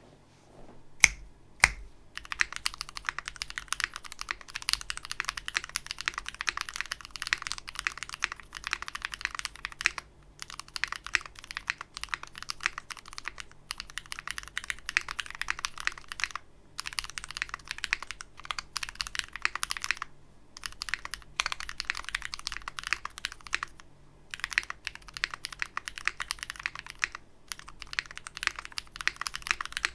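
Fast typing on a KBD8X MKII custom mechanical keyboard with a brass plate, GMK keycaps and lubed switches made of vintage Cherry MX Black housings with NovelKeys Cream stems, giving a really loud, clacky sound. Two sharp single key strikes come about a second in, then rapid continuous typing in runs broken by short pauses.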